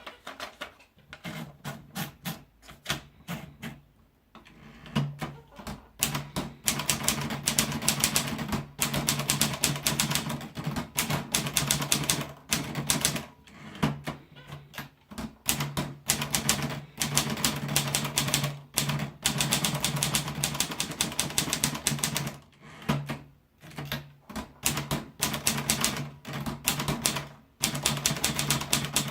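Olivetti Lettera 22 manual portable typewriter being typed on: rapid keystrokes clacking in bursts, with short pauses between runs.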